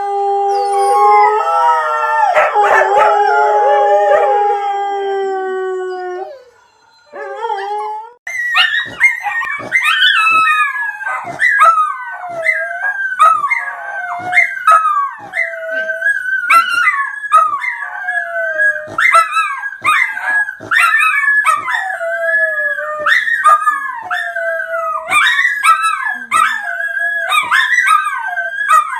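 Dog howling: one long, steady howl for about six seconds. After a brief pause comes a quick run of shorter howls that slide up and down in pitch, broken by sharp clicks.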